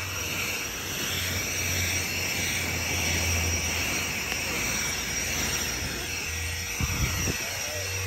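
ECHO DPB-5800T battery-powered backpack blower running on turbo: a steady rush of air through the tube with a high electric fan whine.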